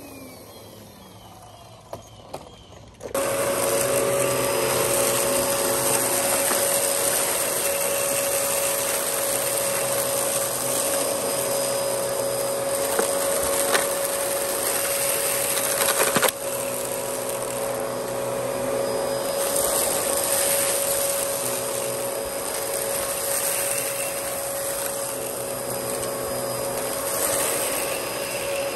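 Dyson DC14 upright vacuum cleaner motor winding down with a falling pitch, then two small clicks. About three seconds in it comes back on suddenly and runs steadily with a constant whine. There is one sharp knock about halfway through.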